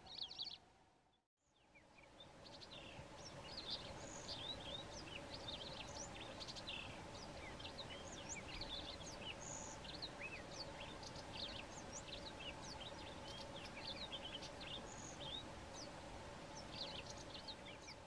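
White-throated canary singing: a short phrase, a brief gap, then from about two seconds in a long continuous song of quick, varied high notes, heard over a steady low background hum.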